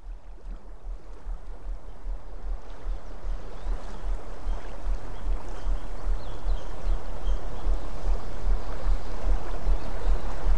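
Meditation background track of running stream water over a deep, evenly pulsing low hum, fading in steadily.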